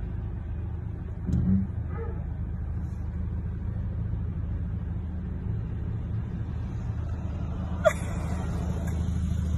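Steady low rumble of an idling car heard from inside the cabin, with a short low thump about a second and a half in. Near the end there is a sharp click, after which a faint hiss sets in.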